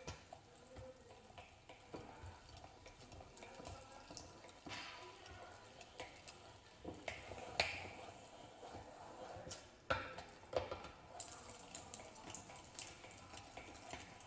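Hand-cranked plastic meat grinder (ALISKID manual mincer) being turned, forcing diced meat through the mincing plate. Faint, irregular clicks and knocks from the crank and plastic housing, a few sharper ones past the halfway point.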